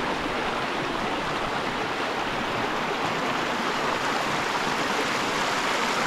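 Steady rushing of a mountain river's flowing water.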